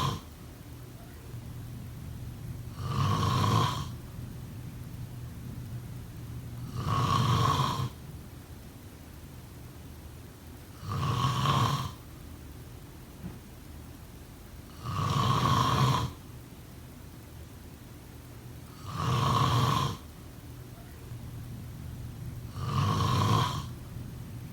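Snoring in a slow, regular rhythm: a loud snore about a second long, roughly every four seconds, with quieter breathing between.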